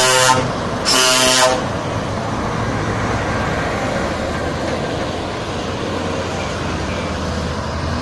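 Truck horn sounding two short blasts, the second about a second after the first, followed by the steady rumble of heavy articulated lorries' diesel engines passing close by.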